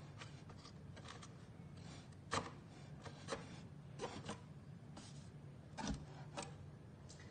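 A cat's paw scratching and tapping at a cardboard box: a few short, scattered scrapes and taps over a faint steady hum.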